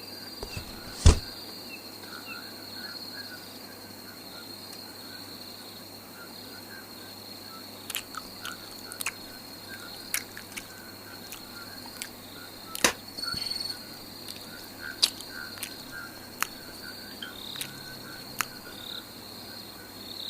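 Outdoor field ambience: a steady high-pitched trill, with faint repeated chirping beneath it and scattered sharp clicks and taps, the loudest about a second in.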